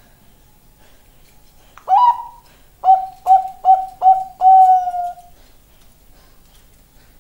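Bangkok-type zebra dove (perkutut) singing one song phrase: a rising opening note about two seconds in, four quick short coos, then a longer held final note.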